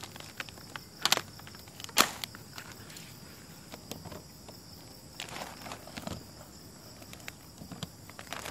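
A clear plastic bag cover crinkling and rustling as it is lifted off a potted cutting, with two sharp crackles about one and two seconds in and softer rustling later.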